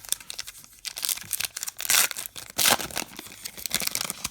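Crinkly wrapper of a trading card pack being torn open and crumpled by hand: a run of irregular crackles and rips, loudest about two seconds in and again shortly after.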